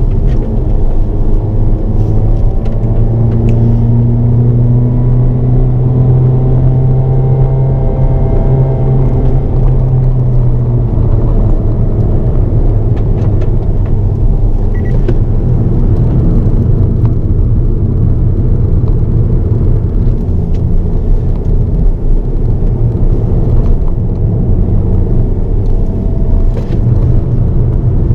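Hyundai Avante N (Elantra N) heard from inside the cabin while lapping a circuit at speed: the engine pulls under load over steady tyre and wind noise. The engine note holds and bends gently up and down for the first ten seconds or so, then sinks into the road noise.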